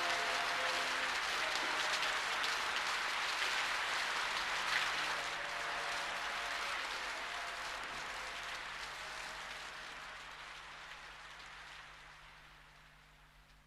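Dense hiss of rain fading out slowly to near silence, with the last held chord of the music dying away in the first second or so.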